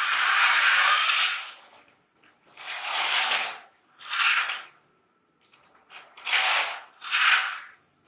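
Battery-operated remote-control toy car's small electric motor and gears whirring in five short bursts as it is driven in spurts, the longest lasting about two seconds at the start.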